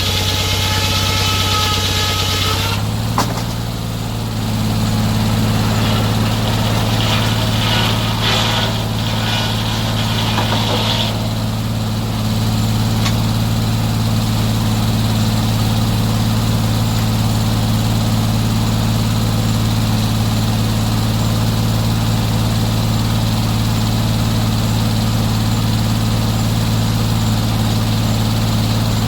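Sawmill engine running steadily under a constant note. About three seconds in there is a click and the note shifts slightly, and a brief hissing stretch follows a few seconds later.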